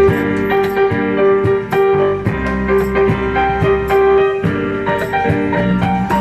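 Instrumental reggae backing music: keyboard notes and chords, one note held for several seconds, over a steady drum beat.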